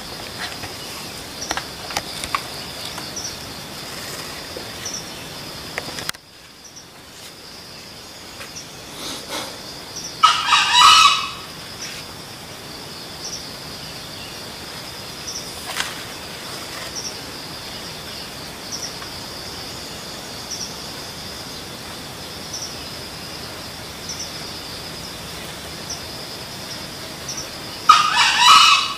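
Junglefowl rooster crowing twice, each crow about a second long, about ten seconds in and again near the end, over a steady high insect drone.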